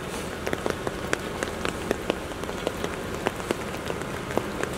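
Steady rain, with many sharp individual drops ticking close to the microphone.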